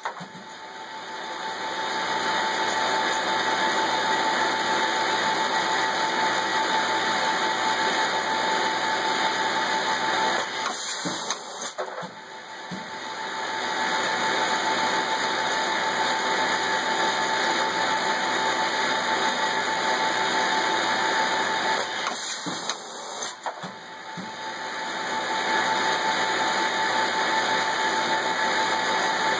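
Automated laser marking station running: a steady machine noise with a constant high whine. It drops away twice, about eleven seconds apart, with a few clicks, then builds back up over a couple of seconds.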